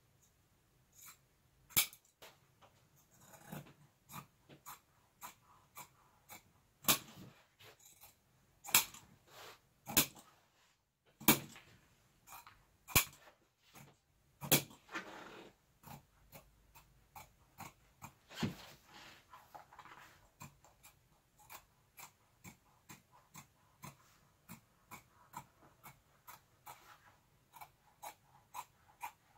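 Irregular sharp clicks and taps with soft rustling in between: hands working eco-leather and foam pieces on a workbench. The clicks are most frequent and loudest in the first half and become fainter and denser toward the end.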